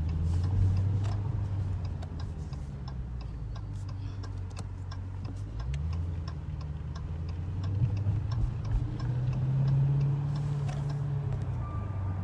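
Car engine running while driving, heard from inside the cabin; its pitch steps up about halfway through. Over it, the indicator relay ticks steadily and evenly.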